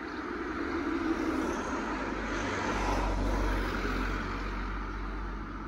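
Two cars driving past one after the other on the road close by, their tyre and engine noise swelling and then fading, with a deep rumble at its loudest about three seconds in.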